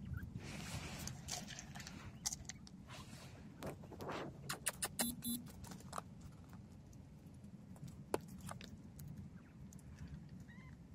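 Coturnix quail pecking dried food from a hand and from the snow: a run of quick, light taps and clicks, thickest in the middle stretch, over soft rustling in the snow.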